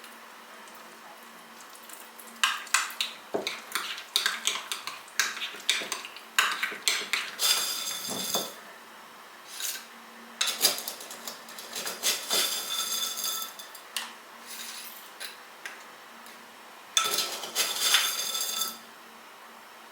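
Cutlery and dishes clinking: a run of sharp clicks and clatters, with two stretches of quick, ringing clinks of a metal spoon against a cup, as in stirring, about seven seconds in and again near the end.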